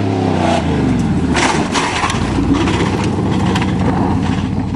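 1988 Chevrolet pickup's engine held at full throttle, its pitch falling as the throttle is let off about half a second in. Then rough rumbling with a series of clanks and rattles as the truck lands and rolls on.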